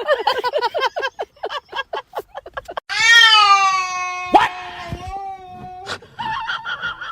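A cat's long drawn-out yowl lasting about three seconds, its pitch slowly falling, after a quick run of short pitched sounds; a shorter yowl follows near the end.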